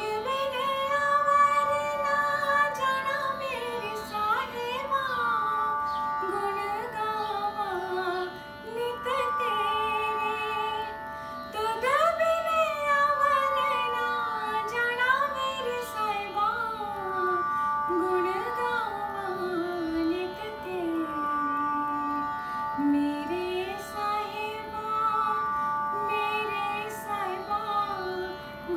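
A woman singing a Hindi devotional bhajan, her voice gliding through an ornamented melody over a steady drone of held accompaniment notes.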